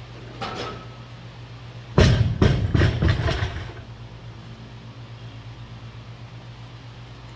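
Loaded barbell with Eleiko bumper plates, 315 lb, coming down onto the rubber gym floor at the end of a deadlift set: a heavy thud about two seconds in, then several smaller knocks and rattles as the plates and collars settle, over about a second and a half. A steady low hum of gym ventilation runs underneath.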